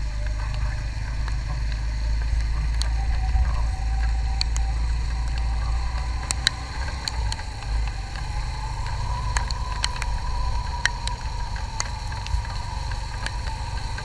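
Motorcycle engine running on the move over a wet road, its note rising slowly as it gathers speed, under a steady low rumble of wind on the microphone. Scattered sharp ticks sound throughout.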